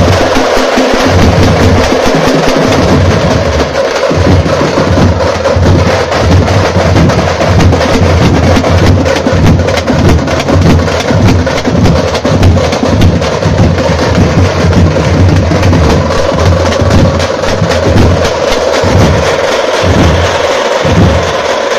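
A tamate troupe playing loud, fast, dense rhythms on large stick-beaten frame drums, with barrel drums beating along.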